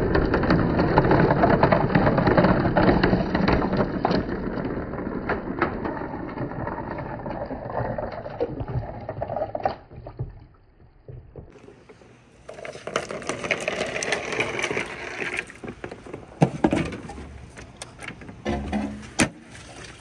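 Water running down a marble run, with marbles clicking and rolling along the track. The sound dips almost to nothing about ten seconds in, then water and sharper clicks return.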